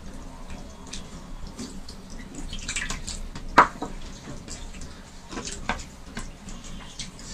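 Wet squelching and clicking of rice and dal being mixed by hand on a plate, with eating smacks; one sharper click about halfway through.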